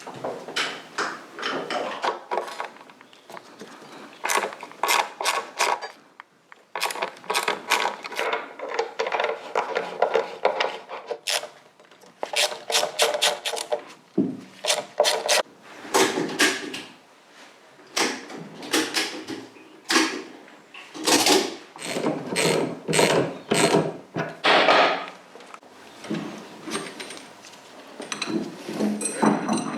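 Metal hand tools and parts clinking and knocking during work on a motorcycle's front forks: many sharp clicks and knocks, some in quick runs, with short pauses between.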